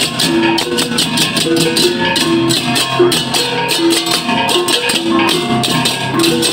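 Balinese baleganjur gamelan playing: fast, steady clashing of hand-held crash cymbals (cengceng) over drums and repeated bronze gong tones.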